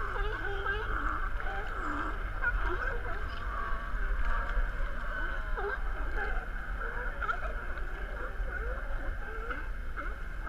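A large group of sea lions calling and barking, many overlapping calls at once, over a steady low rumble.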